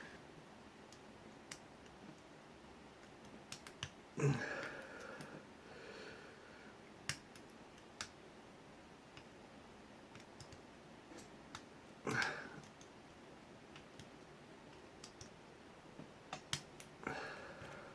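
Small, irregular clicks and taps of a lock pick and tension wrench working the pins in an ABUS 83AL/45 padlock cylinder. Two louder, short noises come about four and twelve seconds in.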